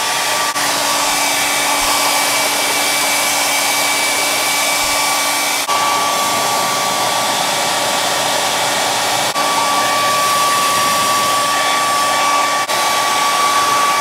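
Handheld hair dryer blowing steadily, a rushing hiss with a steady whine, aimed at a clear Lexan RC car body to dry a coat of liquid mask.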